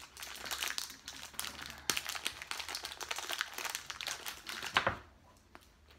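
Crinkly plastic wrapper of a chocolate digestive biscuit pack rustling and crackling as it is worked open by hand, stopping about five seconds in.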